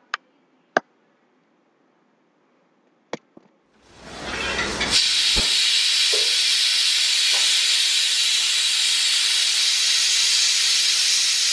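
A few clicks, then about four seconds in a Prestige Deluxe pressure cooker starts venting steam: a hiss that swells quickly and then holds steady and loud. The cooker has come up to pressure.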